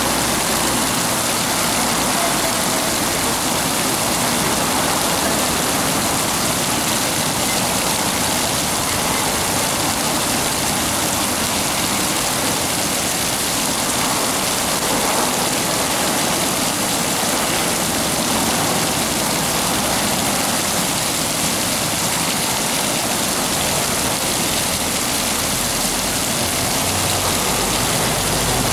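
Ground-level fountain jets spraying and splashing steadily onto wet paving.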